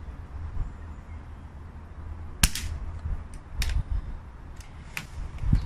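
A Daystate Air Wolf electronic PCP air rifle fired once through a large fuel-filter silencer about two and a half seconds in: a single short, sharp crack, really quiet, with no hammer-spring clang because the electronic valve releases the shot. It reads about 76 dBA at the muzzle. A few fainter clicks follow.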